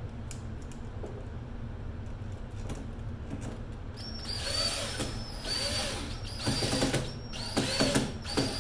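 DeWalt cordless drill driving screws into a metal electrical box's receptacle cover. It runs in several short spurts of about a second each, starting about four seconds in, and ends in a quick series of clicks.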